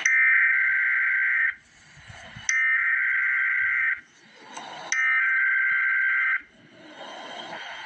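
Emergency Alert System SAME header: three identical bursts of rapid two-tone digital data, each about a second and a half long, with a pause of about a second between them. The bursts encode the alert, here a severe thunderstorm watch.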